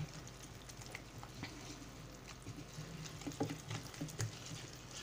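Spoon stirring a wet flour-and-milk dough mixture in a bowl: irregular light clicks, over a faint steady low hum.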